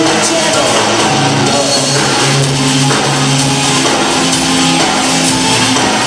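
Rock band playing loud music with drums and guitar, held bass notes under a dense, steady wash of sound.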